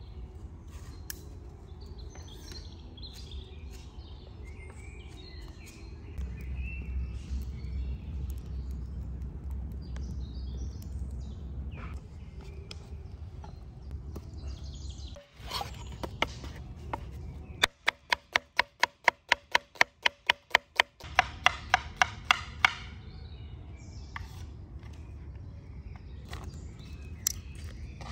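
Knife chopping on a cutting board in a quick even rhythm, about three strokes a second for some five seconds past the middle, with birds chirping and a low steady background noise.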